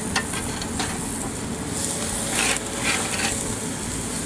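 Whole chicken sizzling on a small Weber gas grill, with a few clicks and scrapes as it is handled to come off the grill.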